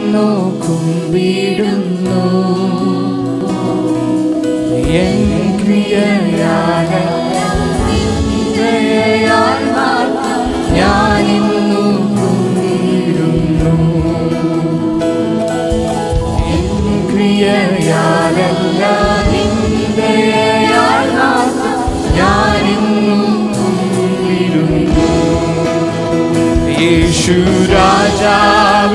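Live Christian worship song: sung lead melody over sustained musical accompaniment, continuing without a break.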